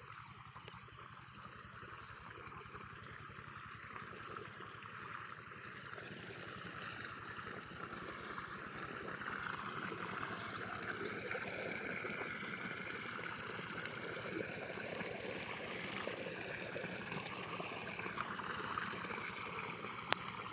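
Pumped river water gushing from an irrigation pipe spout into a paddy-field channel, a steady splashing rush. It grows louder over the first half and then holds steady.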